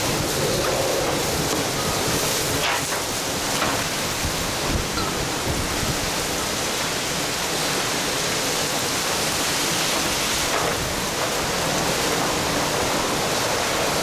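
Typhoon wind and driving rain: a steady, heavy rush of storm noise, with a couple of faint knocks about three seconds in.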